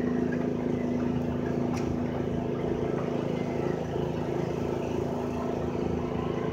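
Steady motor hum holding one constant low tone, with a few faint knocks over it.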